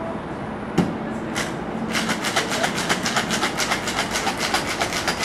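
Boston shaker (metal tin capped over a mixing glass) full of ice and liquid: a sharp knock about a second in as the tin is seated on the glass to seal it, then the ice rattling back and forth in fast, even strokes as it is shaken hard from about two seconds in.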